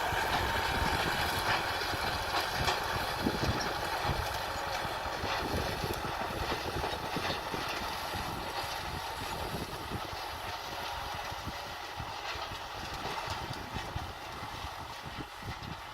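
Kubota M6040 SU tractor's diesel engine running under load while ploughing, a steady rumble that slowly grows quieter.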